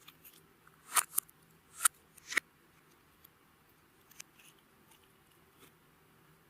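Clear slime being worked by hand, giving a few sharp clicking pops: two about a second in and two more around two seconds, with fainter ticks between.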